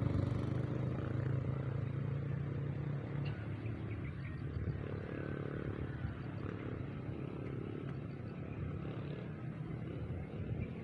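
A motor vehicle's engine running, loudest at first and fading over the first few seconds, leaving a low steady rumble.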